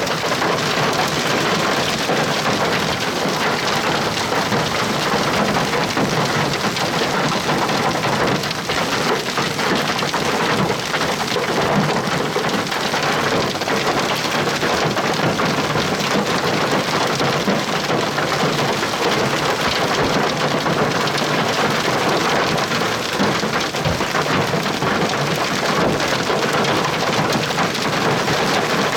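Heavy rain pouring steadily, a dense and even downpour.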